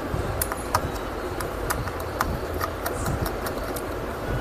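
Light, sharp clicks and taps at irregular intervals, about a dozen, from small tools and laptop parts being handled during work on a laptop motherboard. Under them runs a steady low rumble.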